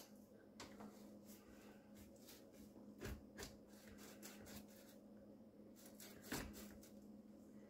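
Near silence: a few faint clicks and knocks from hands working loose the drain pipes under a kitchen sink, over a faint steady hum.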